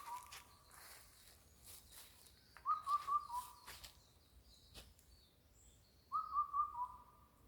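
A bird repeating a short whistled phrase of three or four quick notes ending on a slightly lower note, about every three seconds. A single sharp click comes a little before the last phrase.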